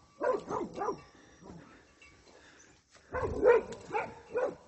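Dog barking in two bouts: a quick run of about three barks at the start, then about five more from about three seconds in.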